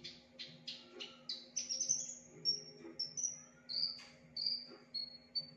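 Branjangan (Javan bush lark) singing its varied, mimicking song: a fast run of short harsh notes that climbs in pitch, then a string of clear whistled notes, about two a second, stepping down in pitch. A faint steady hum sits underneath.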